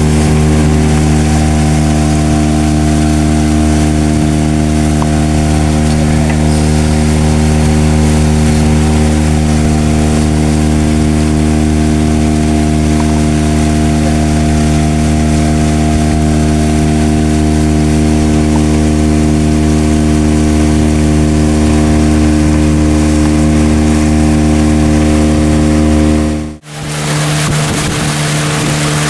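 A boat's engine running steadily while the boat cruises along. Near the end it breaks off for a moment and comes back at a slightly different pitch.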